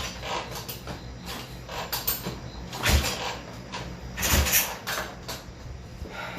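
A 1968 Triumph 650 parallel twin being kicked over, with two heavy kick-start strokes about three and four and a half seconds in and lighter mechanical clunks between them. The engine turns over without catching, the hard-start/no-start fault being chased.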